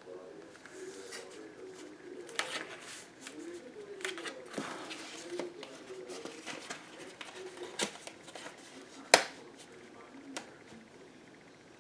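Paper and cardstock being handled: rustling and small crinkling clicks as fingertips pick at the edge of double-sided score tape to peel off its liner. One sharp snap comes about nine seconds in.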